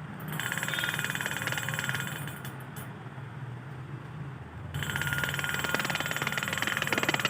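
Homemade doorbell ringing: a small DC motor rapidly striking a bowl, giving a continuous buzzing ring like an electric bell over the motor's hum. The ring weakens midway and comes back louder about five seconds in.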